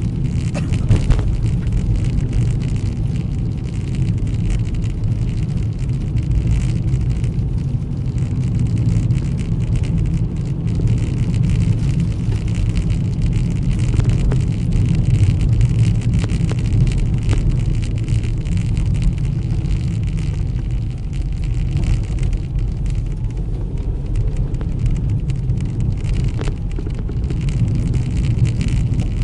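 A car driving on a slushy, snowy road: a steady low rumble of engine and tyres, with scattered ticks and spatters from the wet road surface.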